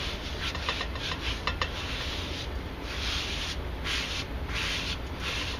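Palms rubbing and sweeping across canvas in repeated strokes, smoothing it down onto a hardboard panel coated with gel medium: a dry swishing of skin on fabric.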